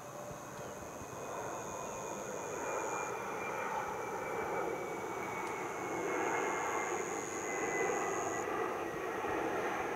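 An aircraft passing overhead: a broad engine rush that slowly grows louder, with a thin whine gliding slowly down in pitch.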